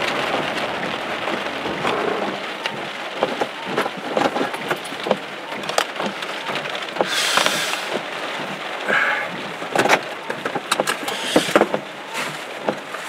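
Rain hitting a vehicle's roof and windshield, heard from inside the car, with many single drops ticking over a steady hiss. A windshield wiper sweeps the wet glass.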